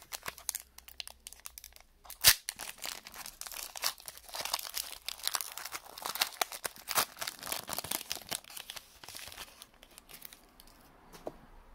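Foil wrapper of a Panini Chronicles trading-card pack being torn open and crinkled by hand, a dense crackling with one sharp crack about two seconds in. The crinkling thins out near the end.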